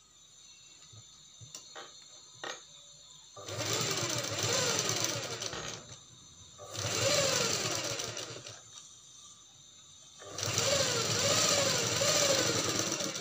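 Derby sewing machine stitching fabric in three runs of a few seconds each, with short pauses between; its pitch rises and falls as the speed changes. A few light clicks of fabric handling in the quiet first few seconds.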